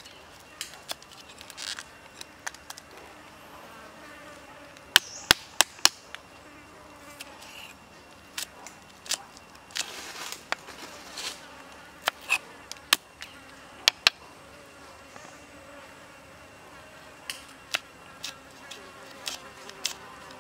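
Large kitchen knife chopping garlic, shallot and chili on a wooden stump board: sharp knocks in small irregular clusters, with four loud quick ones about five seconds in. A steady faint insect buzz runs underneath.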